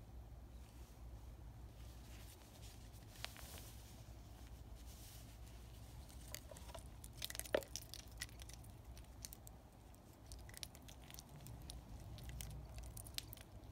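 Faint handling noise: small clicks and rustles of a stainless-steel link bracelet and its paper tag being handled, thickest in the second half, with one sharper click about seven and a half seconds in.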